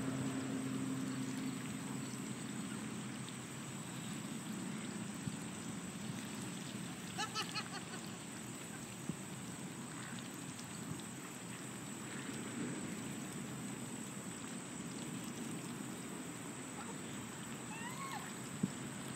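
Canada goose drinking at the water's edge: faint trickling and dribbling of water from its bill over steady outdoor background noise. A short run of bird calls comes about seven seconds in, and a brief chirp near the end.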